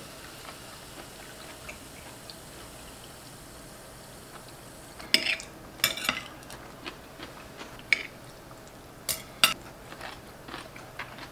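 Metal forks and knives clicking and scraping on ceramic plates as steak is cut and eaten: a run of sharp clinks starting about five seconds in, the loudest two near the middle and near the end. Before that only a faint fizzing hiss from soda just poured into a glass.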